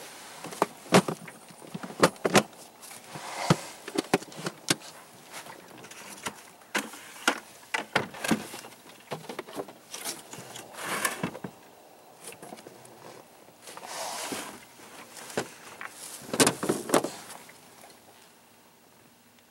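Water splashing and slapping around a small boat close to the microphone: irregular sharp knocks and slaps with a few longer splashy washes, dying down near the end.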